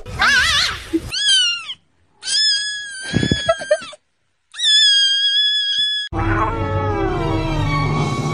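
Cat meowing: a short wavering cry, then two long, high meows with a pause between them. Music starts about six seconds in.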